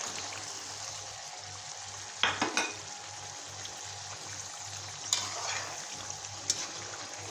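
Raw chicken pieces sizzling as they fry in hot oil and onion-tomato masala in a kadai. A few sharp knocks against the pan come a little after two seconds in, then once around five seconds and again around six and a half.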